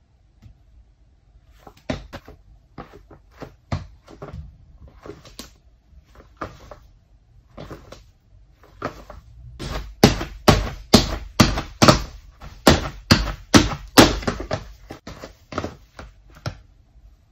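Footfalls of Nike Alphafly 2 running shoes landing on a wooden floor as the wearer hops in place: a few scattered steps at first, then, from about the middle, a quick even run of louder landings about two a second that fades near the end.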